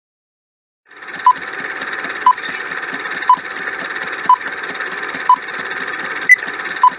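Countdown-timer sound effect: fast ticking over a steady hiss, with a short beep about once a second and one higher beep near the end. It starts about a second in.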